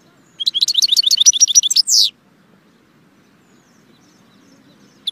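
European goldfinch singing: a quick phrase of rapid, high, twittering notes ending in one falling note, then a pause of about three seconds before the next phrase starts near the end.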